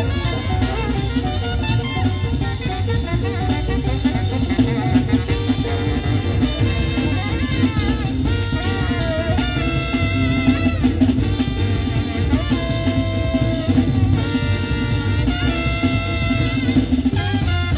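Club-style jazz with drum kit and brass, played back through a custom car audio system (Pioneer RS-D7xII head unit, Technics tweeters, FaitalPRO midrange and midbass speakers, Luxman amplifiers) inside the car's cabin.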